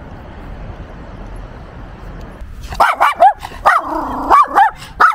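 A small white dog on a leash barking in a quick run of short, high-pitched barks, starting nearly three seconds in, one of them drawn out longer. Before the barking there is only a steady background hiss.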